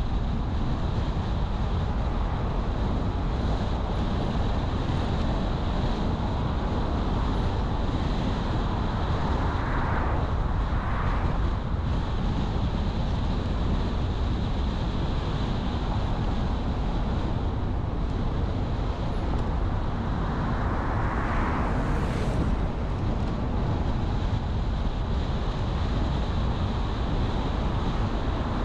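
A car being driven: steady tyre, engine and wind noise with a deep rumble, swelling briefly a few times.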